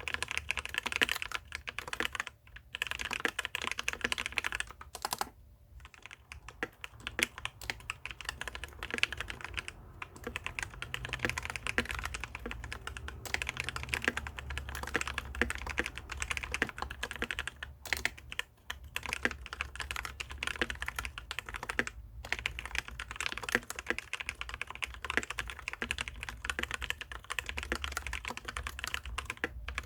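Typing on a Maxtill TRON G400K mechanical keyboard with Outemu brown switches: a fast, continuous run of keystrokes with a few short pauses. The switches are spray-lubricated with Super Lube grease, the stabilizers are greased with Super Lube, and the case has no sound-dampening foam.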